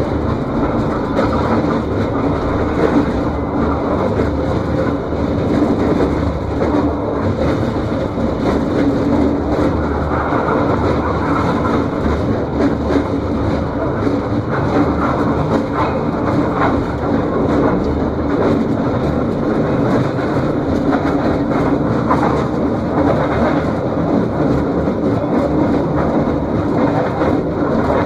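Mine hoist cage descending the shaft at about 11 miles an hour: a steady, loud rumble and rattle of the open cage running down its guides.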